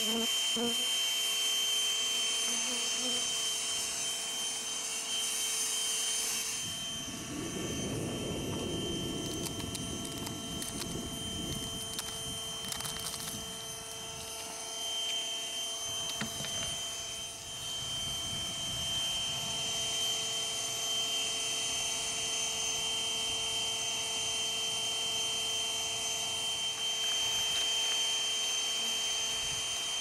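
Bee vacuum motor running steadily with a constant high whine while its hose sucks honeybees off an exposed comb colony. Low rumbles come and go through the middle.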